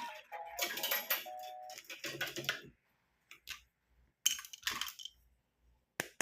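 Small hard plastic pieces of a toy beauty set clicking and rattling as they are handled, a string of separate short clicks and rustles. A few short musical notes sound in the first two seconds.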